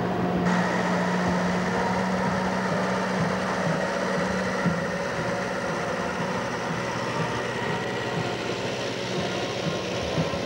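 A vehicle engine running steadily at low speed, with a constant low hum.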